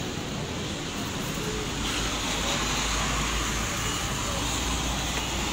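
Steady outdoor hiss of rain and wet-road traffic, with a vehicle passing on the wet road from about two seconds in, swelling to a low rumble and fading near the end.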